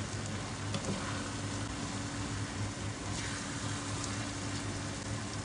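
Chili sambal frying in oil in a pan, giving a steady sizzling hiss, with a steady low hum underneath.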